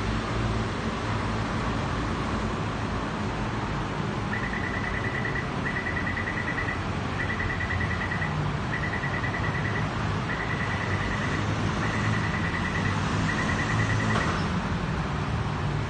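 Door-closing warning before a rubber-tyred Taipei Metro Wenhu line train departs: a high, rapid electronic beeping in seven short bursts about a second and a half apart, over the steady hum of the waiting train. A single knock sounds just after the beeping stops.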